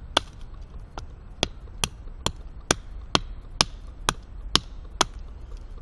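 Pathfinder School PLSK1 bushcraft knife chopping into an upright stick of wood, a sharp knock with each blow, about eleven blows at a steady pace of a little over two a second, stopping about five seconds in.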